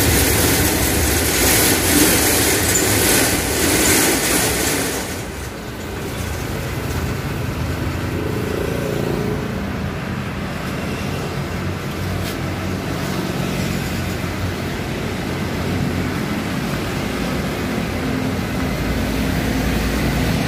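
Nissan Diesel CDA260 truck's six-cylinder turbo-intercooled diesel engine running as the truck drives slowly up, its low rumble growing louder near the end. A loud hiss covers the first five seconds.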